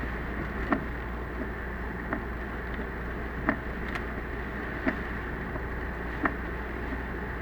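Car driving in a typhoon, heard from inside the cabin: steady road and engine noise with the windshield wipers knocking at the end of each sweep, a louder knock about every 1.4 seconds and a fainter one between.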